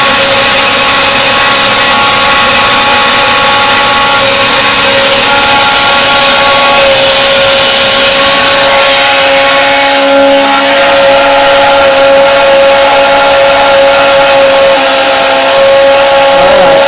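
Small 12-volt electric water pump running steadily, a constant whine over the even hiss of water spraying from a cone spray nozzle.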